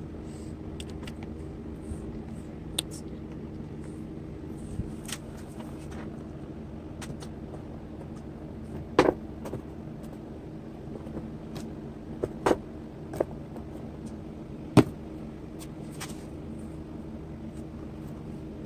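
Acrylic paint bottles, a jar and a small canvas being handled and set down on a table, giving a few short sharp knocks and taps in the second half over a steady low hum.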